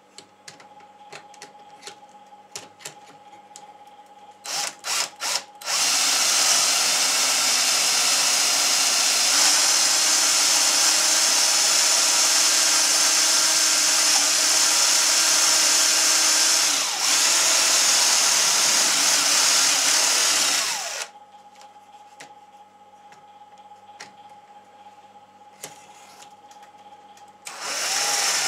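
Cordless drill boring a dowel hole into the end of a wooden board. A few short trigger blips come about five seconds in, then a steady run of about fifteen seconds that eases briefly once and stops abruptly. A short burst of drilling comes again near the end.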